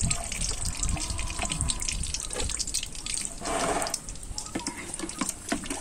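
Cooking oil heating in a black iron karahi, crackling with small scattered pops and sputters, with a brief louder sizzle about three and a half seconds in.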